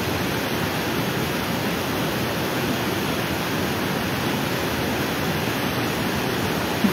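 Swollen, muddy mountain stream in spate after heavy rain, its fast brown water rushing in a steady, unbroken roar of noise.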